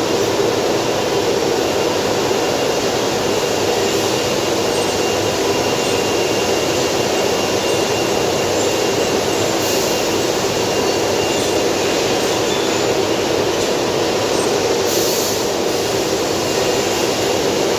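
A machine running steadily and loudly, an even mechanical noise with a faint high whine.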